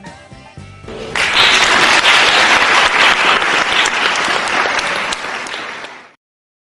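The tail of a song fades out, then an audience applauds loudly for about five seconds, the applause cutting off abruptly near the end.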